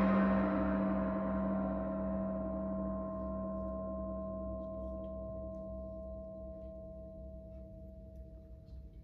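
Large gong and other metal percussion ringing on after a loud stroke, fading slowly and evenly with a low hum and a few higher held tones. One of the tones is cut off suddenly near the end.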